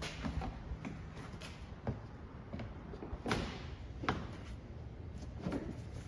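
A series of irregular knocks and clicks, with two louder ones about three and four seconds in.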